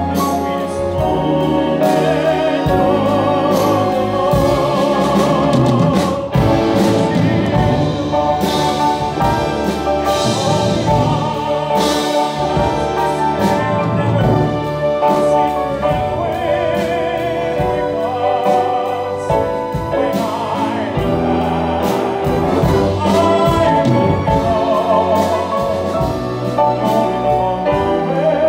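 A tenor singing a slow, building ballad with wide vibrato, backed by a full symphony orchestra with strings and percussion.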